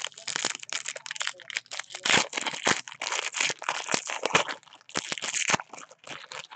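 Foil wrapper of a football trading-card pack crinkling in dense, rapid crackles as hands tear it open and peel it back.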